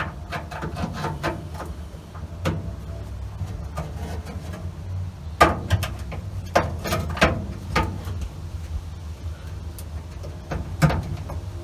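Scattered clicks and knocks of a car gauge being handled and fitted into a metal dash adapter plate, over a steady low hum.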